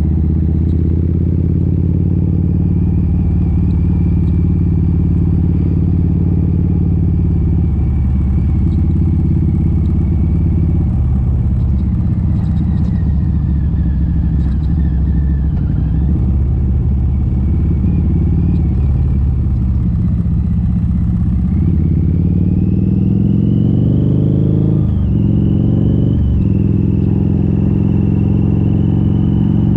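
Harley-Davidson V-Rod Muscle's Revolution V-twin, with Vance & Hines slip-on mufflers and the catalytic converters removed, running at a steady cruise. About two-thirds of the way in it accelerates, its pitch rising, then breaks twice in quick succession for upshifts before settling at a higher, steady note.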